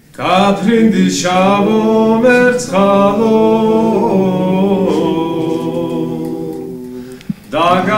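Unaccompanied voices singing long, gliding held notes as background music, easing off briefly about seven seconds in before the singing starts again.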